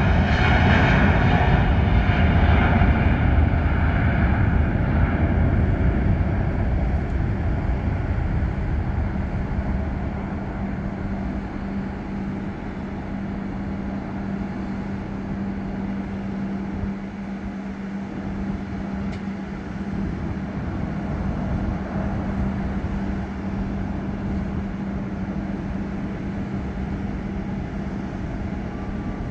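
Airbus A330-900neo's Rolls-Royce Trent 7000 turbofans at takeoff thrust as the airliner rolls past and climbs away, loudest at first and fading over about ten seconds into a steady distant rumble. A steady low hum runs underneath from about nine seconds in.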